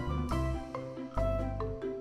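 Light instrumental background music: a plucky mallet-percussion melody of short struck notes over a bass line, in a steady beat.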